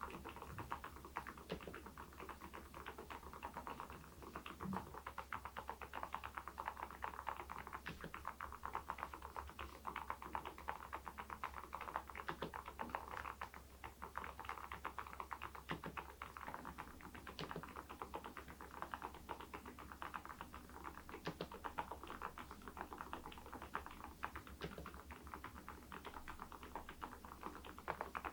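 Continuous typing on an Epomaker TH80 V2 Pro mechanical keyboard fitted with Kailh Deep Sea switches and ceramic keycaps: a steady, dense stream of keystroke clicks.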